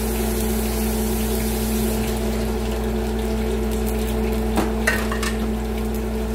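A pot of kare-kare stew simmering on the stove over a steady hum, with a few light clicks about four and a half to five seconds in.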